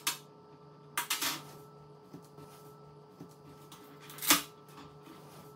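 A few sharp clicks and taps of hands and tools working the LED backlight strips out of a TV, the loudest about four seconds in, over a steady low hum.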